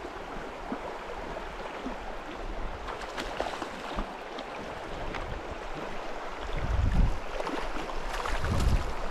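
Shallow creek water rippling over gravel, with small splashes in the water. Low rumbles of wind on the microphone come in about two-thirds of the way through and again near the end.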